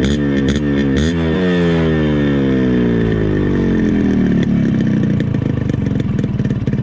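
Yamaha RX100's 98 cc two-stroke single-cylinder engine: the throttle is blipped twice in the first second or so, then the revs fall slowly for about four seconds and settle into a choppy, uneven idle near the end.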